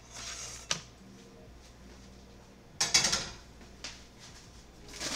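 Kitchen handling noises while tacos are being assembled: a brief rustle, a sharp click just under a second in, and a louder scrape or clatter about three seconds in.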